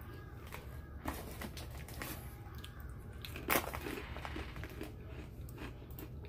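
Close-up chewing and crunching of food: scattered small crunches and crackles, with one sharper, louder crunch about three and a half seconds in, over a steady low hum.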